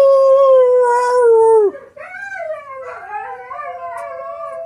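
A dog howling. One long, loud, held howl falls slightly in pitch and stops abruptly under two seconds in. Quieter, wavering howls follow and overlap one another.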